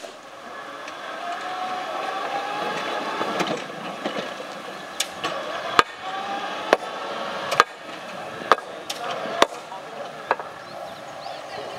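Small electric mine locomotive hauling a train of wooden mine tubs over narrow-gauge track: a whine that rises and falls, with sharp clicks of wheels over rail joints about once a second.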